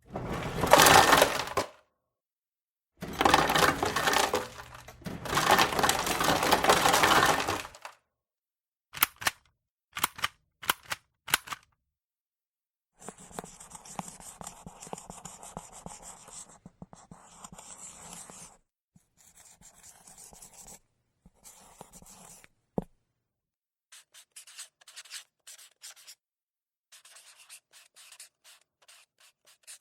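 A series of separate paper and stationery handling sounds: two loud noisy bursts of tearing or rustling, a few quick sharp strokes, a longer fainter stretch of steady scratching that ends in one sharp click, then many light short scratches.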